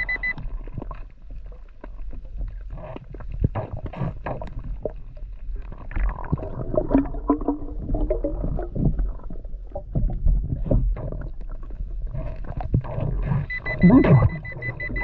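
Underwater gurgling and bubbling, with scattered sharp clicks, as a diver fans sand off the seabed by hand. About thirteen seconds in, an underwater pulse-induction metal detector's steady high beep starts again over the uncovered target, a ring.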